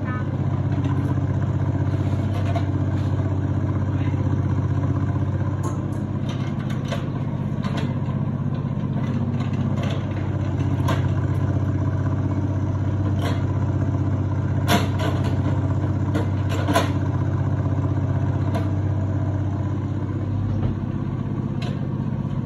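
Kubota KX91-3 mini excavator's small diesel engine running steadily under load as it digs, with scattered sharp clanks from the arm and bucket working the soil, the loudest about 15 and 17 seconds in.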